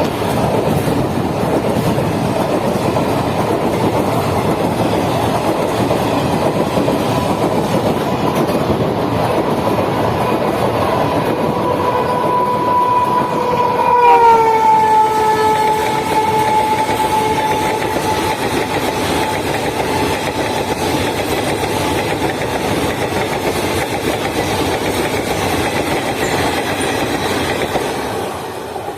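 Indian Railways express train passing at speed, wheels clattering over the rails, while the locomotive sounds a long horn that grows louder and drops in pitch about halfway through as the locomotive goes by. The train noise then fades near the end.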